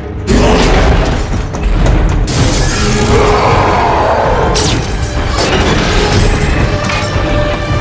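Action film soundtrack: a dramatic orchestral score over loud booms and crashes of smashing metal and shattering glass. The mix jumps sharply in loudness just after the start.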